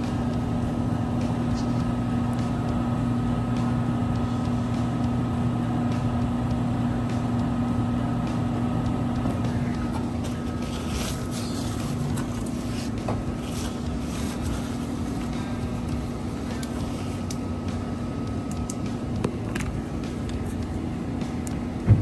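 Steady motor hum of a Bryant gas furnace, a low drone with a fainter higher whine, easing a little about halfway through. A single sharp knock at the very end.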